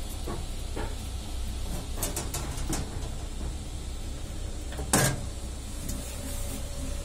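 3D printer running mid-print with a steady low hum, with scattered light clicks in the first few seconds and one sharp knock about five seconds in. Near the end a faint steady tone comes in with a faint pulsing note beneath it, about three pulses a second.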